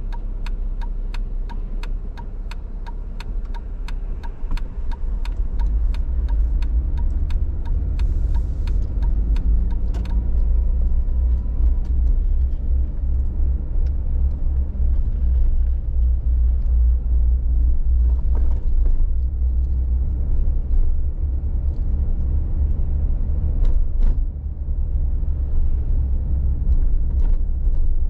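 Car driving slowly through town: a steady low rumble of engine and road. For about the first ten seconds a turn signal ticks evenly, about three clicks a second, then stops once the turn is made.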